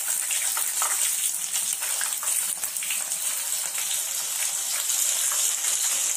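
Hot rice bran oil sizzling steadily in a kadhai as stuffed pieces are deep-fried, a constant high hiss with small crackles.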